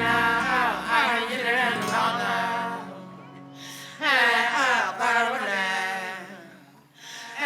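Music with singing voices. A sung phrase fades out about three seconds in, and a second phrase starts about a second later and fades again near the end.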